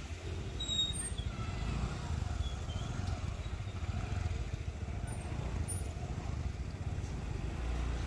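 Motorcycle riding along a road: steady engine and road noise under a low, fluttering wind rumble on the microphone.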